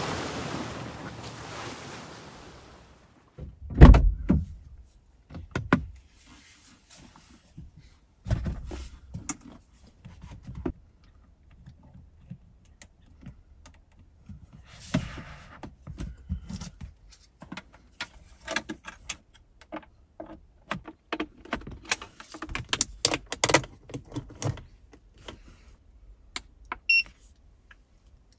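Sea surf and wind fading out, then a loud thump, followed by scattered plastic clicks, knocks and rustling as an EcoFlow River Pro portable power station and its cables are handled and plugged in. A short high beep sounds near the end.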